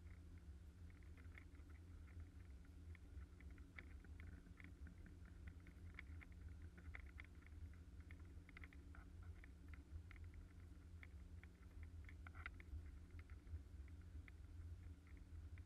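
Faint, muffled steady drone of the aluminium river boat's motor running under way, with scattered light ticks and taps over it.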